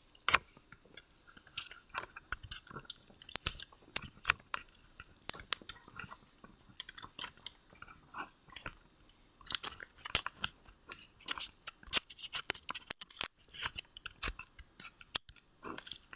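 Cheap adhesive tape being handled and pressed into place right at the webcam's microphone: irregular crackling and clicking with many sharp little snaps.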